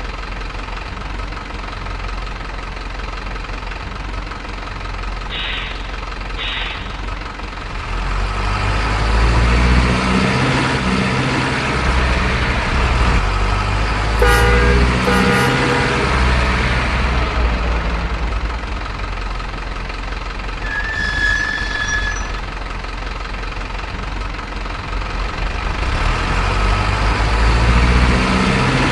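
Vehicle engine rumbling, heavier from about eight seconds in, with a horn sounding two short blasts about halfway through and a few brief beeps.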